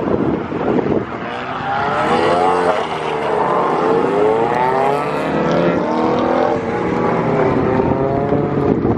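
Mini Cooper's four-cylinder engine revving hard as the car accelerates away from a standing start, climbing in pitch and dropping back at each upshift, fading as it drives off. Wind buffets the microphone at the start.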